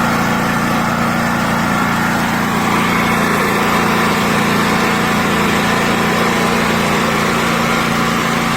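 WEN DF5600X dual-fuel portable generator running steadily on gasoline with no load on it, on its first run after being started.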